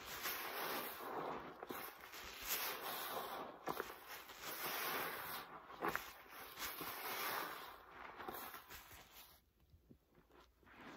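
Stacked foam-soaked sponges squeezed and wrung by rubber-gloved hands: wet squishing and crackling of foam with frequent sharp squelches, quieter in the last second or two.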